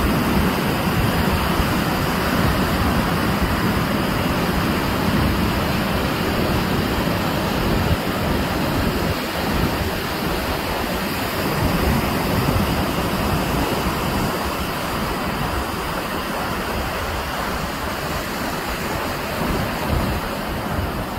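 Ocean surf breaking and washing up the beach: a steady rushing noise that swells slightly in loudness every few seconds.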